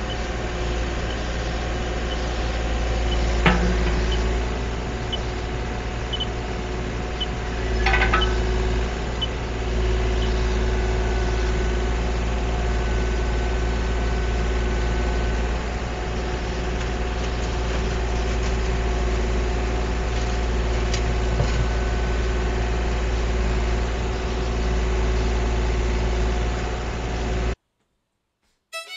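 Kubota KX040-4 mini excavator's diesel engine running steadily as the boom and bucket dig, a constant hum with several held tones. Two sharp knocks stand out, about three and a half and eight seconds in. The sound cuts off abruptly near the end.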